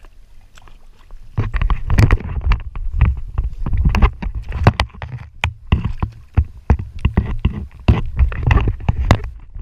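Water sloshing and splashing around a camera housing at the waterline, with many irregular knocks and clicks. Quieter for about the first second, then busy splashing for the rest.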